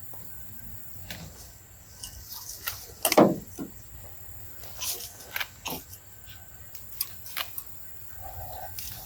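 Cut tree branches being handled, leaves rustling with scattered knocks and crackles, and one heavier thump about three seconds in.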